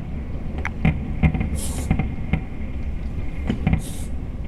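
Fireworks bursting across the city, heard as scattered pops and bangs muffled through a closed window, over a low steady rumble. Two brief hissing bursts come about a second and a half in and near the end.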